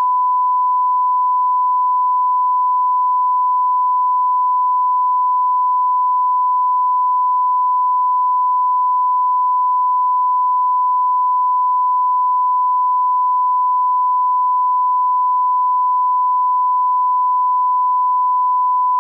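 A steady 1 kHz line-up test tone, the reference tone that goes with SMPTE colour bars: one unchanging pure pitch that cuts off abruptly.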